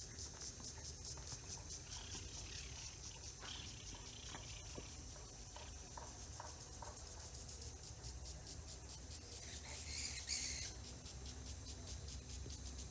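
Insects chirring steadily in a high, fast-pulsing drone, with a few short bird chirps early on. A brief louder hiss comes about ten seconds in.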